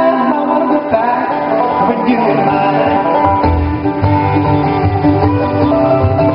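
Live acoustic string band playing bluegrass-style music on fiddle, acoustic guitar, mandolin, banjo and double bass, with a low bass line coming in about two and a half seconds in.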